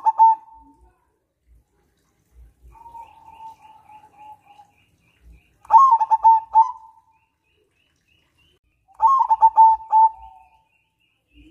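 Zebra dove cooing: phrases of rapid staccato coos, one at the start, one about six seconds in and one about nine seconds in, with a softer, drawn-out coo between the first two.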